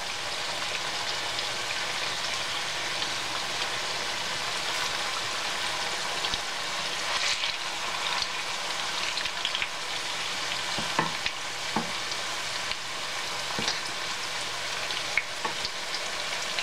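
Sweet potato wedges sizzling steadily in hot oil in a stainless steel pan, with scattered light knocks and scrapes of a wooden spatula as the pieces are turned over.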